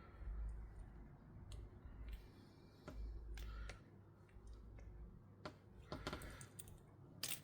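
Scattered light clicks and low bumps of hands working on small wiring parts and connectors, irregular and quiet.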